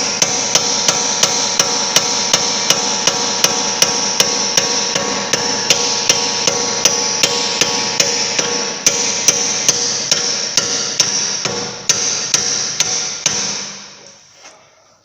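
Hammer blows on steel, about three a second, with the metal ringing on between strikes; the blows stop about 13 seconds in and the ringing dies away. The blows are driving a seized bolt out of the Audi A6's front upper suspension arm.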